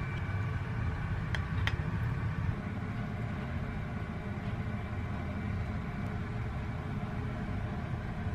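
Steady low rumble of a vehicle in motion, with two faint clicks about a second and a half in.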